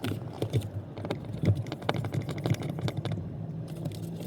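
Quick, irregular light clicks and taps as a mirror dash cam is slid onto its windshield mount and its retaining bolt is tightened, over a steady low hum.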